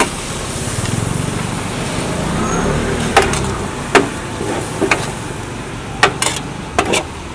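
Metal spatula scraping and striking a large steel frying pan while noodles are stir-fried, with several sharp clanks in the second half. A motor vehicle's engine rumbles underneath through the first few seconds.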